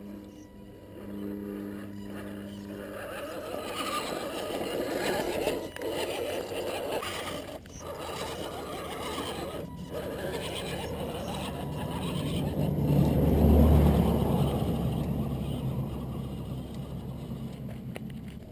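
1/10-scale Axial SCX10 Honcho electric RC crawler driving over loose gravel and rock: motor and gear drivetrain whirring with tyres crunching and scraping on stones. It grows louder as the truck passes close, loudest a little past the middle, then fades as it climbs away.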